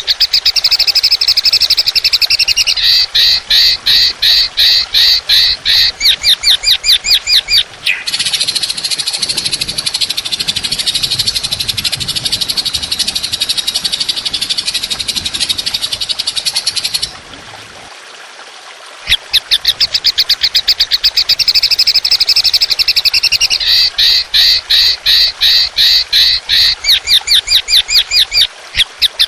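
Masteran bird-song training recording. It opens with long trains of rapid, harsh repeated notes, about four or five a second. About a third of the way in, a continuous high buzzing trill replaces them. After a short pause the rapid repeated notes return.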